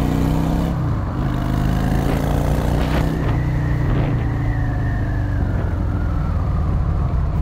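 Yamaha Drag Star 650's air-cooled V-twin engine pulling away and accelerating on the road, heard from the rider's position. The engine note changes about one second in and again about three seconds in, as with upshifts.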